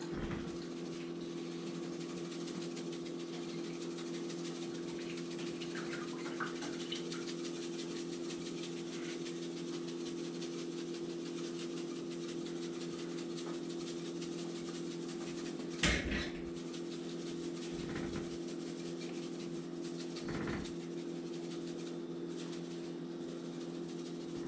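Steady machine hum with a few low tones, as of an air conditioner or other appliance running, under faint rattling of a spice shaker being shaken over fish fillets. There is a single sharp knock about 16 seconds in and a softer one a few seconds later.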